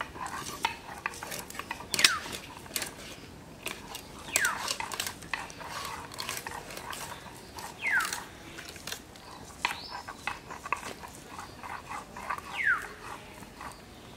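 Carp head being cut on a boti blade: irregular short clicks and scrapes as the blade goes through it. About four short high calls, each falling in pitch, come through at intervals.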